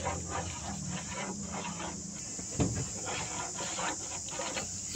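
A steel ladle stirring a pot of rajma curry, with irregular scrapes and clinks against the steel pot and one louder low thump about two and a half seconds in. A steady high-pitched whine sits behind it.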